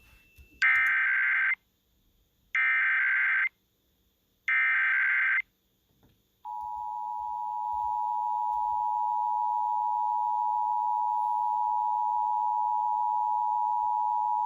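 Emergency Alert System signal for a monthly test: three one-second bursts of digital SAME header data tones, about a second apart, which tell receivers the alert's type and area. Then the steady two-tone EAS attention signal begins and holds for about eight seconds.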